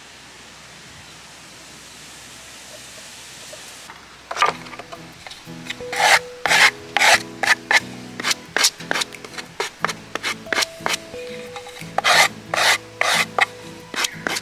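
Sandpaper rubbed back and forth along the cut edges of wooden boards to take off the burrs: quick rasping strokes, about two to three a second, starting about four seconds in. Soft background music plays underneath.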